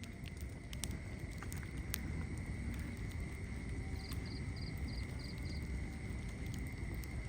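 Wood fire crackling in a fireplace: scattered sharp pops and snaps over a low, steady rumble of burning.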